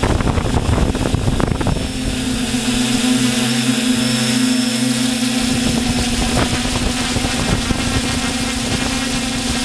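Multirotor drone's electric motors and propellers humming steadily at one pitch, picked up by the onboard camera, with wind rumbling on the microphone; the wind rumble drops away for a few seconds midway.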